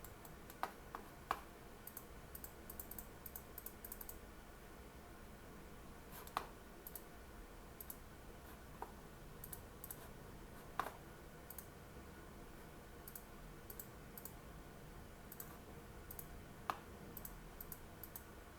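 Faint, scattered clicks of a computer mouse and keyboard being used, some in quick runs and a few single louder clicks.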